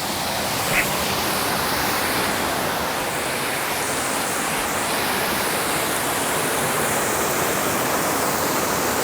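Waterfall close by, water pouring down in a steady, loud rush of white noise.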